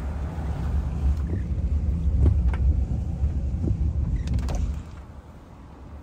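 Car driving over a rough driveway: a steady low rumble with a few scattered knocks and rattles. The rumble drops off sharply about five seconds in, leaving a quieter hum.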